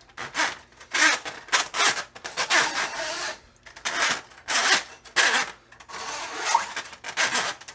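Coiled steel drain snake cable scraping and rubbing in irregular strokes as it is pulled back out of the drain.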